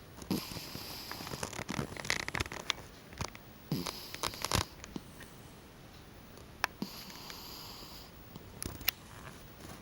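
A sleeping cat snoring: noisy snoring breaths about three seconds apart, three in all, with a couple of sharp clicks between them.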